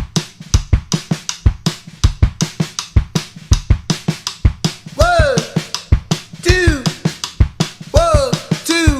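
Background music with a steady drum-kit beat of bass drum and snare. Several rising-and-falling pitched sounds join in about halfway through.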